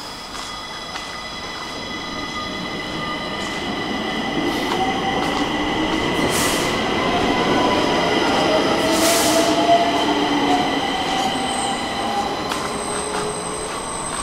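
Stockholm metro train running along the platform, its wheels squealing in high steady tones over a whine that slides up and down in pitch. The sound builds for about nine seconds, peaks, then eases off, with two short hisses along the way.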